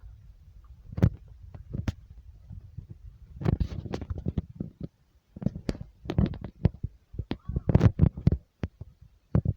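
Irregular knocks and thumps, some in quick clusters, over a low rumble that dies away about halfway through.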